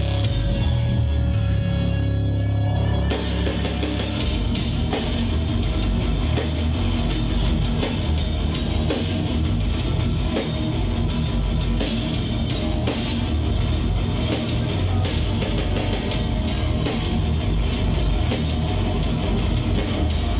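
Live industrial rock band playing loud. A low, heavy drone with a few steady notes opens it, then about three seconds in the full band comes in with distorted electric guitars, drum kit and cymbals.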